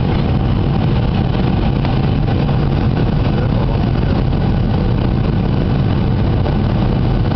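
Steady cabin noise of a jet airliner descending on approach: engine and rushing air heard from a window seat, heaviest in the low end and unchanging throughout.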